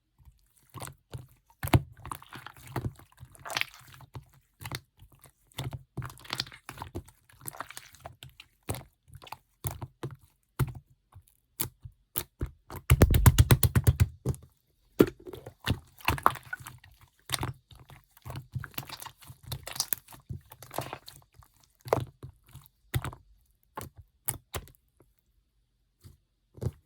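Clear slime being squished and pressed by hand, giving irregular sticky clicks and small air-bubble pops. About halfway through comes a quick run of rapid pops, the loudest part.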